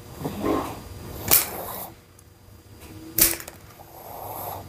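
Plier-style dog nail clippers cutting a Yorkie's toenails: two sharp clips about two seconds apart.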